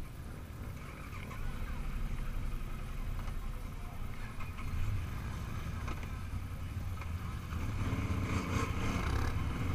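ATV engines running at idle close by, a steady low rumble that swells louder about a second and a half in and again near the end.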